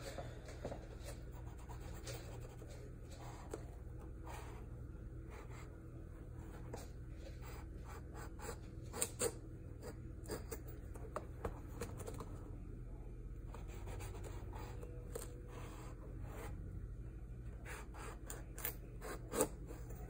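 Kitchen knife cutting and scoring the thick rind of a pomelo: faint, irregular scratchy cuts and small sharp clicks, over a steady low hum.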